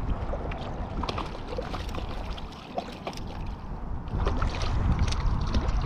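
Light water splashing and scattered small knocks over a low wind rumble on the microphone, as a freshly caught trout is handled at the water's edge.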